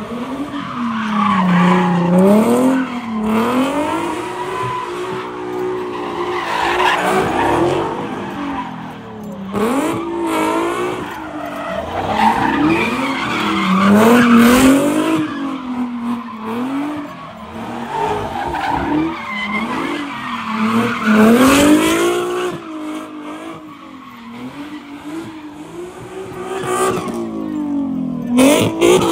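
Cars doing donuts, their engines revving up and down over and over while the spinning rear tyres squeal and skid.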